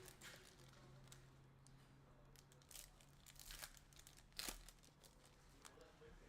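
Faint crinkling and scattered sharp clicks of hockey card packs and cards being handled, over a low steady hum.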